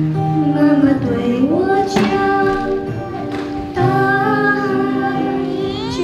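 A child singing a melody with held and gliding notes over instrumental accompaniment.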